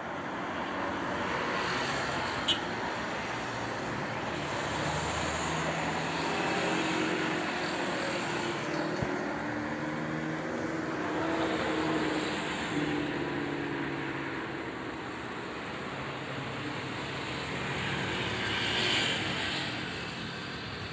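Steady rumble of distant jet airliners on the runway mixed with road traffic passing close by, swelling slightly near the end as an airliner starts its take-off roll. A single sharp click about two and a half seconds in.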